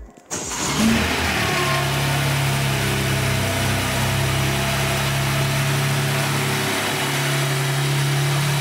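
BMW M4 G82 Competition's twin-turbo straight-six starting up about half a second in, flaring briefly, then settling into a steady idle; this is its first start after being refilled with oil.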